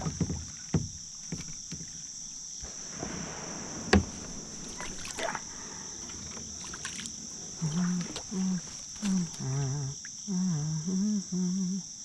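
A steady high chirring of insects runs throughout. Over it come light knocks and rubbing from the kayak and fishing gear, the loudest a sharp knock about four seconds in. From about eight seconds in, a man's voice hums short, low, wavering notes.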